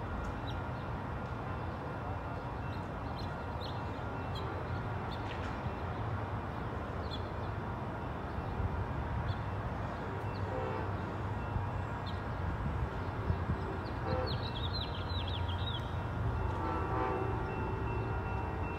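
Distant locomotive horn of an approaching train, sounding several times and strongest near the end, over a steady low rumble. A few short bird chirps come in about two-thirds of the way through.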